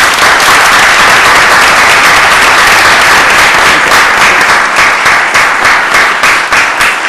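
A room of people applauding, dense clapping that thins out toward the end.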